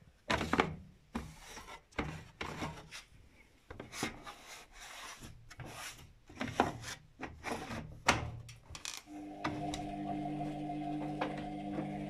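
Irregular scraping, rubbing and knocking of hands handling the washing machine's plastic detergent drawer and a cloth. About nine seconds in, a steady hum of several tones starts from the machine and keeps going.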